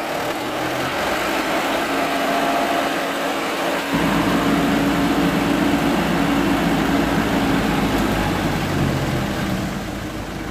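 Diesel engine of a Mitsubishi Fuso dump truck running while its hydraulic hoist tips the bed up to unload. About four seconds in, the engine note steps up suddenly and gets louder, then holds steady.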